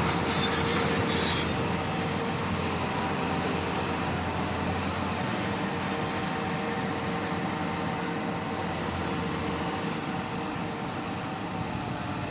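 Mobile crane's engine running steadily, with a steady whine over its low hum. A high hiss cuts off about a second and a half in.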